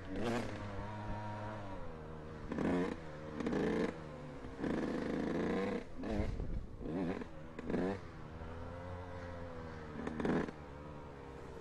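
Dirt bike engine revving up and down in repeated bursts of throttle between rolling off, as the bike laps an indoor motocross track. After about ten seconds the revving stops and the engine settles to a lower, steady run.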